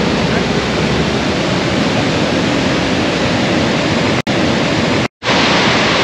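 Steady, loud rushing of the Iguazu Falls cascades, cut off for an instant twice near the end.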